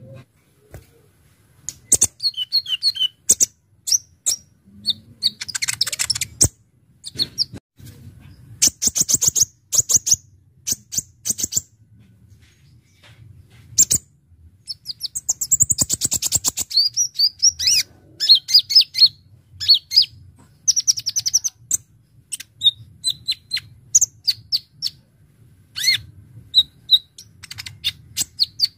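Kolibri ninja sunbird singing: bouts of sharp, high chips and fast rattling trills, broken by short pauses.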